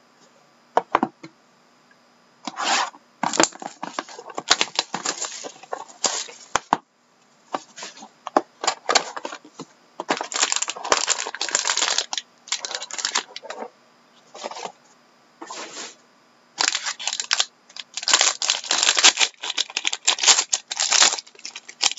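A cardboard trading-card box being opened and a foil pack wrapper crinkled and torn, in irregular bursts of rustling and crackling with short pauses between.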